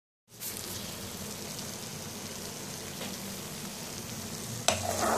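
Sliced potatoes sizzling in hot oil in a pan, a steady hiss. A sharp clatter near the end starts a louder, busier stretch of sizzling.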